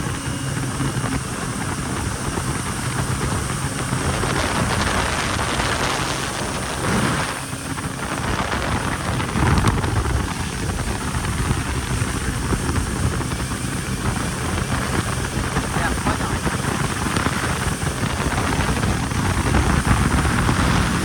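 Yamaha jet ski engine running steadily at speed, with wind rushing over the microphone; the noise dips briefly about a third of the way in.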